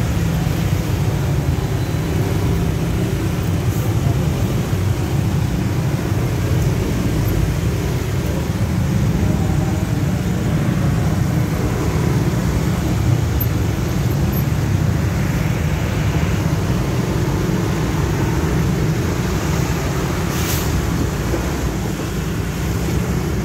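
Traffic jam of motorcycles, cars and a bus, heard from a slow-moving motorcycle: a steady low engine rumble throughout, with a short hiss about twenty seconds in.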